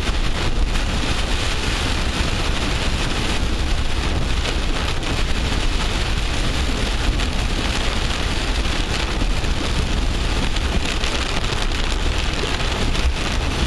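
Heavy rain pelting a moving car, heard from inside the cabin: a steady, dense hiss with the low rumble of the car on the wet road underneath.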